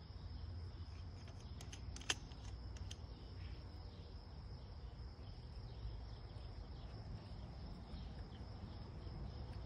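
Hand cutter squeezing a PVC sprinkler riser, with one sharp crack about two seconds in and a few faint clicks around it. Insects chirp steadily over a low rumble.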